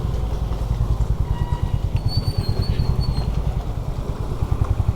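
Honda CB350RS single-cylinder engine running at low, steady road speed, its exhaust beating in a quick even pulse.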